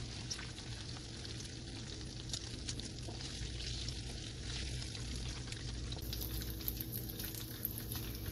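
Hot oil sizzling and crackling steadily in a frying pan as breaded spare ribs finish frying and are lifted out, with a faint steady low hum underneath.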